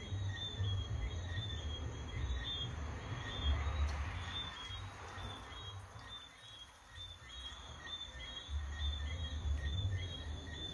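Short high chirps repeated steadily, about two to three a second, over a low rumble.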